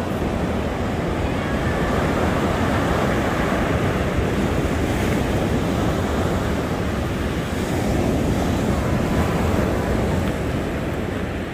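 Ocean surf breaking and washing up a sandy beach, a dense steady rush that swells a little twice, with wind buffeting the microphone.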